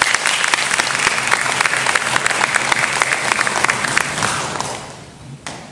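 Audience applauding in a concert hall. The clapping is loud at first and dies away about four to five seconds in, and a single knock follows near the end.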